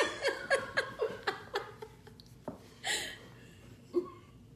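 A person laughing in a run of short ha-ha bursts, about four a second, trailing off after about two seconds.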